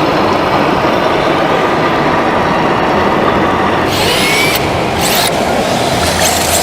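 A steady vehicle engine running, with two short hissing bursts about four and five seconds in.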